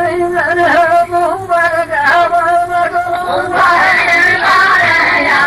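A male poet chanting a verse of Arabic muhawara poetry in a melodic, wavering voice, with a chorus of voices taking up the chant about three and a half seconds in.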